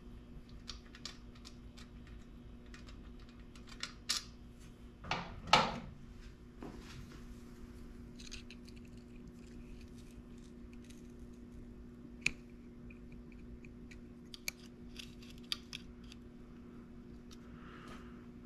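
Hand-tool work on the carburetor fittings of a 70cc ATV: scattered small metallic clicks and clinks as hoses, clamps and small bolts are worked loose. There are a few louder knocks around four to six seconds in, over a faint steady hum.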